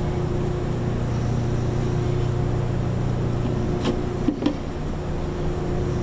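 Steady low mechanical hum with a fixed pitch, and a couple of light plastic knocks about four seconds in as the plastic oil drain container's screen is lifted.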